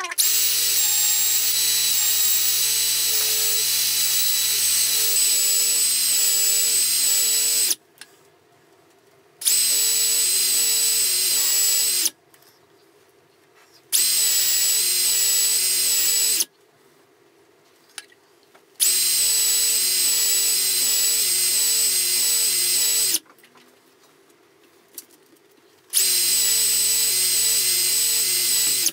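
Electric drill spinning a drill-mounted knife-sharpening stone, switched on and off in five runs of a few seconds each with short pauses between. It is the stage of drawing the blade along the stone to grind a new edge.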